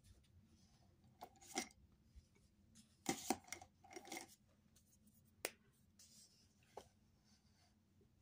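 Scattered small clicks and light rustles, with the loudest cluster about three seconds in: coloured pencils being handled and picked up, clicking against each other.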